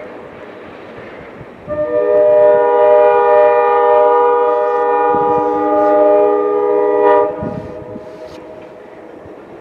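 Locomotive horn of an Alco RS11 diesel sounding one long multi-note chord for about five and a half seconds, starting about two seconds in, over the low rumble of the train moving off.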